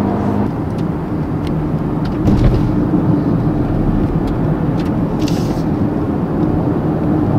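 Mercedes-AMG GLB 35's 2-litre four-cylinder engine and tyre noise heard inside the cabin while cruising steadily, with a slight swell in level about two seconds in.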